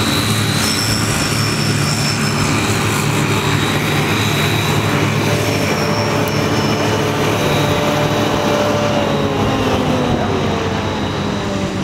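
New Holland tractors running Vicon front-and-rear mower combinations through grass: a steady engine drone with a thin, steady high whine over it. Some tones drift slightly lower near the end.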